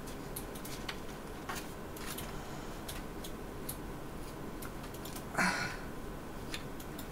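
Scissors working at stiff cardboard, making scattered small clicks and snips as they fail to cut through it. A louder brief scraping noise comes about five and a half seconds in.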